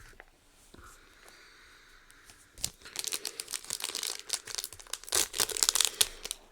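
Foil booster-pack wrapper being crinkled and torn, starting about two and a half seconds in and going on in a dense run of crackles until shortly before the end.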